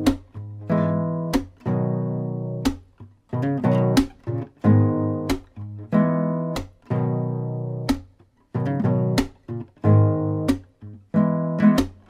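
Instrumental music: an acoustic guitar strumming chords in a loose rhythm, each strum ringing out and fading before the next.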